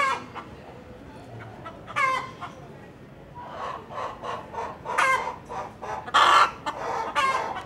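Chickens clucking: a series of short calls, some with a falling pitch, coming more often in the second half, the loudest about six seconds in.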